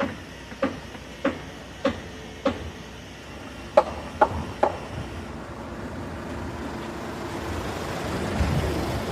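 Footsteps on a hard surface at walking pace, then three sharper knocks, then a road vehicle approaching and passing, its noise swelling with a low rumble near the end over steady street background.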